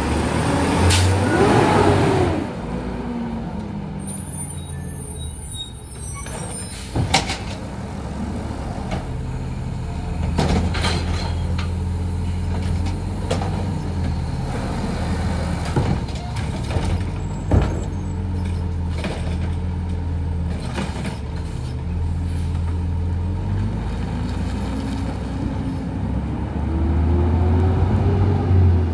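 Automated side-loader garbage truck: its engine revs up as the lift arm finishes and then runs steadily as the truck pulls away, with a hiss of air a few seconds in and sharp bangs about seven and seventeen seconds in. The engine revs up again near the end.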